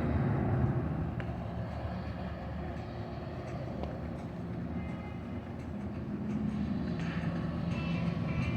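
Steady low rumble of an engine running, with no clear rise or fall.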